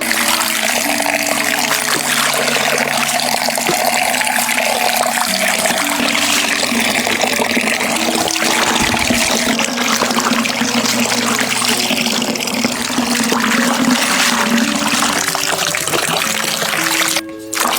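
Water running steadily from a tap, with background music underneath; the water cuts off suddenly near the end.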